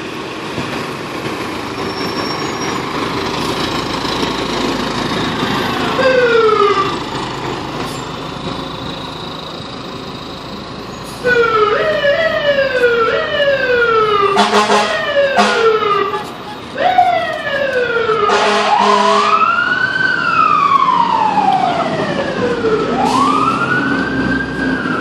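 A fire engine pulls out with its diesel running. It then sounds its siren in quick repeated sweeps, broken by short air horn blasts. Near the end this turns to a slow wail that falls and then rises again.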